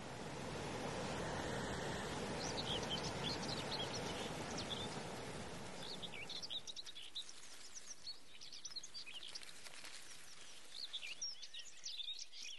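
Flowing stream water rushing, with small birds chirping over it; the water sound fades out about six seconds in, leaving the birdsong.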